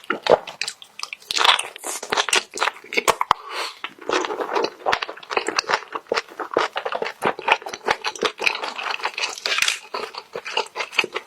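Close-miked mukbang eating sounds: continuous chewing, biting and wet smacking of spicy stir-fried squid, with many quick irregular clicks.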